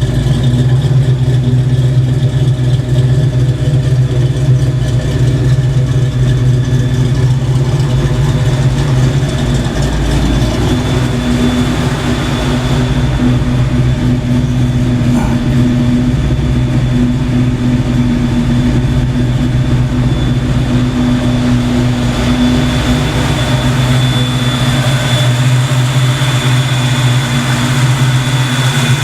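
Fox-body Mustang engine idling with a choppy, lopey idle, steady and not knocking, with the electric radiator fans running alongside. A further steady hum joins about ten seconds in.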